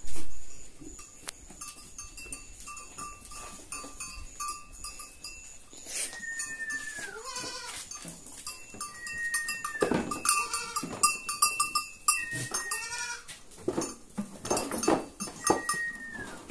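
Goats bleating about four times, each call starting high and sliding down in pitch, over scattered clicks and knocks from the herd feeding at bowls.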